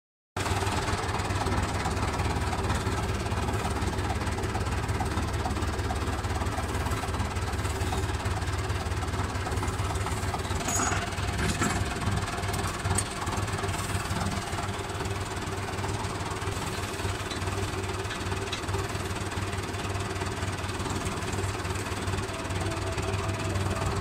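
David Brown 990 tractor's diesel engine running steadily, with a low hum, and a few faint clicks and knocks partway through.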